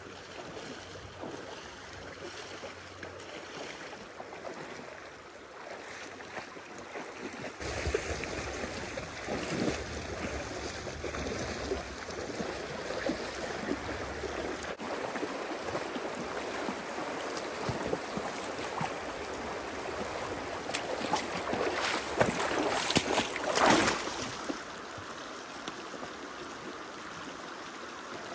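Shallow, rocky river flowing steadily, with splashing from people and a dog wading through the water. The splashing is loudest about three-quarters of the way through, then the flow carries on alone.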